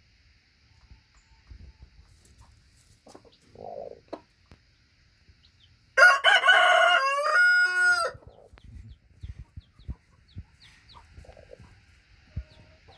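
A rooster crows once, about six seconds in: a loud call of about two seconds that ends on a falling note. A brief soft cluck comes about four seconds in.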